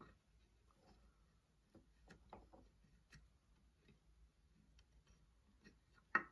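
Near silence with faint scattered taps and clicks as an ash spline is handled and pressed into the glued slot across a mahogany box's mitred corner, and one sharper click just before the end.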